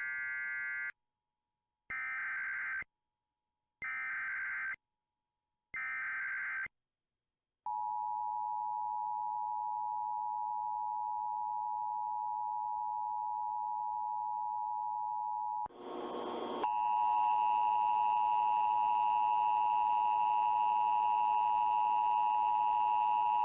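Emergency Alert System broadcast over FM radio. Four short, buzzy SAME data bursts about a second apart come first, then the steady two-tone attention signal (853 and 960 Hz) for about eight seconds. After a brief break the attention tone returns louder and buzzier, with added overtones, as the warning about to be read is relayed.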